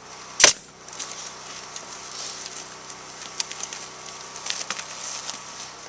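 A pneumatic nail gun fastening cedar wall shingles: one sharp shot about half a second in. After it comes the light clatter and rustle of shingles being handled, with a few faint clicks.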